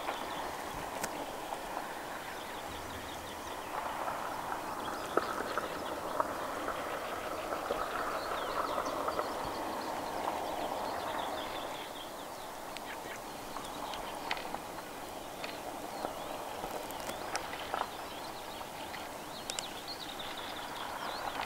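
A continuous dense chorus of animal calls, louder between about four and eleven seconds in, with faint higher chirps and a few small clicks over it.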